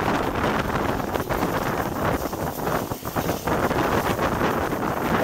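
Wind rushing over a microphone held out of the window of a moving steam-hauled train: a loud, steady rush with the running noise of the train beneath it, dipping briefly about three seconds in.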